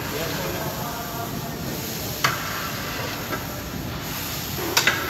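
Grated carrot halwa being stirred with a long steel paddle in a large steel pot, over a steady hiss from the cooking. A few sharp metal clinks: one about two seconds in, and two close together near the end.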